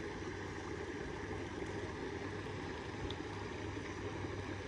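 Steady rushing of flowing creek water, even throughout.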